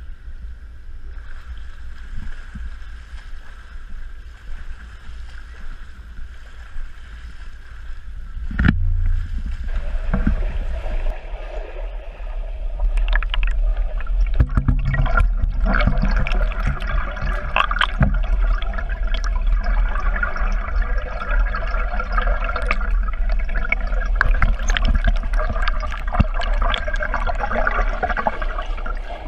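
Pool water sloshing and gurgling around the camera as a swimmer passes, over a steady low rumble. About nine seconds in there is a thump, and the sound then becomes a louder, muffled underwater rush full of small clicks and bubbling.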